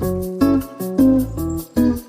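Background music: plucked acoustic guitar over a bass line and a steady beat, with notes changing about every half second.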